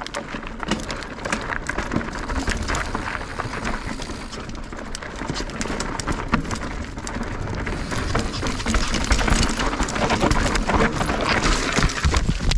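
Mountain bike riding down a rocky trail: tyres and frame knocking and rattling over rock in quick irregular clatter, over a steady rushing noise, getting louder in the second half.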